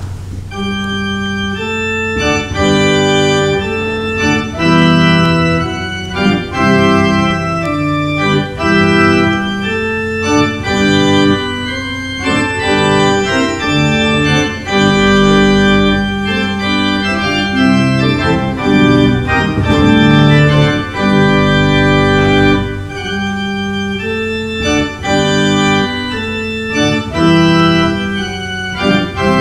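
Church organ playing a postlude: sustained chords over a held low bass note, with a deeper pedal note sounding twice midway.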